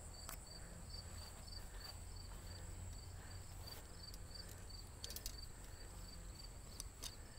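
Insects chirping in a steady, even rhythm of about three chirps a second, over a constant high-pitched drone. A few faint clicks come about five seconds in and again near the end.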